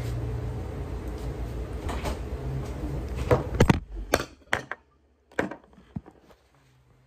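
Household knocks and clunks over a steady low hum, with a cluster of sharp knocks about three and a half to five seconds in; after them the hum stops and only a couple of faint clicks remain.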